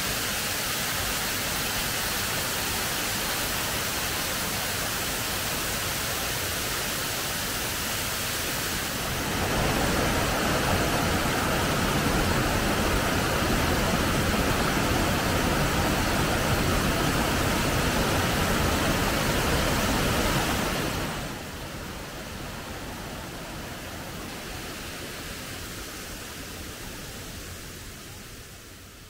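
Large waterfall: a steady rush of falling water that grows louder about a third of the way in, drops back about two-thirds of the way through, and fades out near the end.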